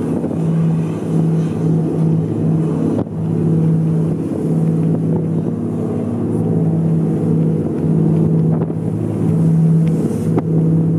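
A boat engine droning steadily at sea, a constant low hum, with wind buffeting the microphone.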